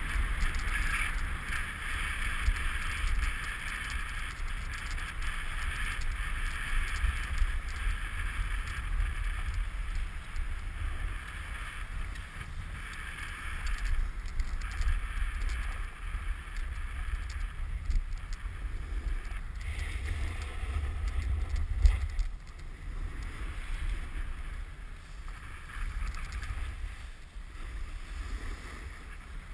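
Wind buffeting a GoPro's microphone as a snowboard slides down a packed piste, its base and edges scraping over the bumpy, cut-up snow. There is one sharp knock about three quarters of the way through.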